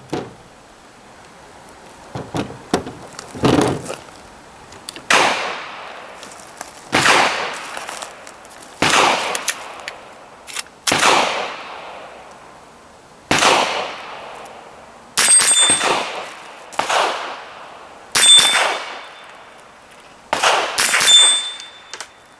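GSG STG44 .22LR rifle fired in slow single shots, about one every two seconds, each followed by the clang of a hit on steel plates. Several of the later hits ring on with a high, lasting tone.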